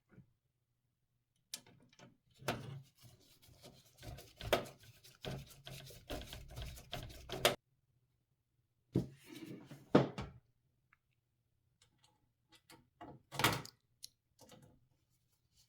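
Irregular clicks, taps and light rattles of hardware being handled, coming in three clusters, over a faint low steady hum.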